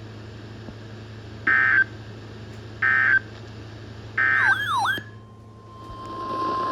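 Three short bursts of EAS/SAME digital data tones, the end-of-message signal closing a NOAA Weather Radio warning, followed by a brief warbling glide. About five seconds in, a steady 1050 Hz weather radio alert tone begins over radio hiss, heralding the next warning.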